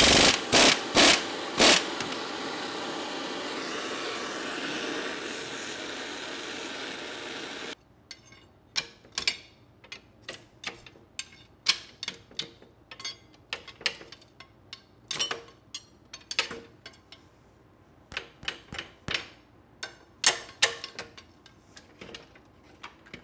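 A pneumatic impact wrench hammers in a few short bursts on the old front axle's crusty bolts, followed by a steady rushing noise. Then, after a cut, comes a long run of irregular metal clinks and knocks as axle parts are handled and shifted by hand.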